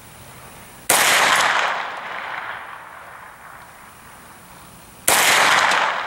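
Two gunshots from a 9mm AR-9 with an 8-inch barrel, about four seconds apart, each a sharp crack followed by a reverberating tail lasting about a second.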